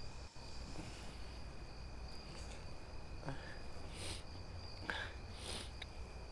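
Crickets chirring steadily with a low hum underneath. A few short, soft noises come about four and five and a half seconds in.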